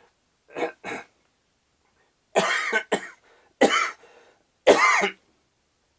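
A man coughing: two short coughs or throat-clearing sounds, then three louder coughs about a second apart.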